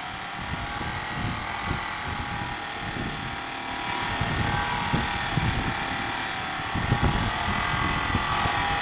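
Polishing head of a CNC tank polishing machine, its spinning polishing wheel running against a rotating stainless steel tank: a steady machine hum with several whining tones over a low rumble.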